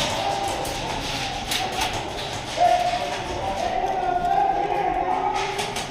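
Scattered sharp shots of airsoft guns, a few single cracks and a quick run of them near the end, over distant players' voices echoing in a large hall.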